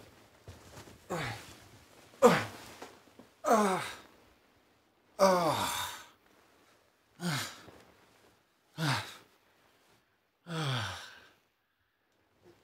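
A person sighing heavily and repeatedly: about eight long, breathy sighs, each falling in pitch, one to two seconds apart.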